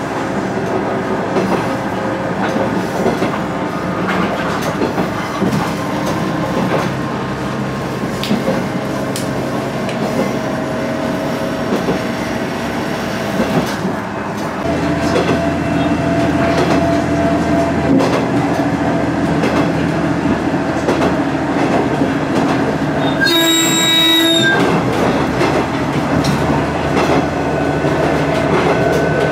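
KiHa 110 diesel railcar running along the track, with engine and wheel-on-rail noise heard from inside the cab. About halfway through the engine note strengthens and the sound grows louder as it powers up. Later the horn sounds once for about a second.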